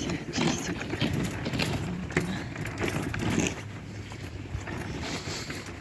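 Footsteps crunching in deep snow, one every half-second or so, over low wind rumble on the microphone.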